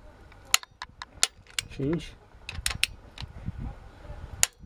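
Sharp, separate clicks of a click-type torque wrench and its ratchet as cylinder head bolts are pulled up to 80 N·m, the second tightening stage. A short wavering sound comes about two seconds in.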